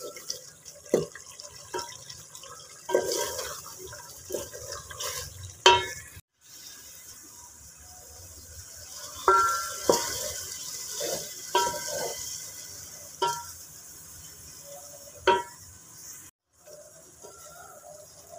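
A spatula stirring a thick, bubbling curry sauce in a large metal pot, with repeated sharp knocks and scrapes against the pot's side and wet stirring noise as shredded cabbage and vegetables are mixed in. The sound breaks off twice for a moment.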